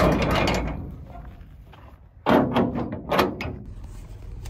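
Metal stock horse trailer's rear door swung shut with a loud clang and rattle, followed about two seconds later by a further clatter of knocks from the door and its latch bar being worked.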